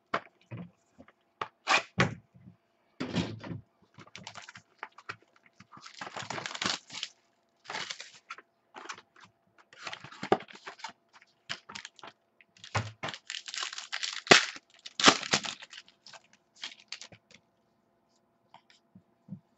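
A cardboard Topps Inception card box being handled, opened and its cards pulled out: a string of taps, clicks and scraping rustles of cardboard and card stock, with longer sliding swishes around six seconds in and again around fourteen to fifteen seconds in.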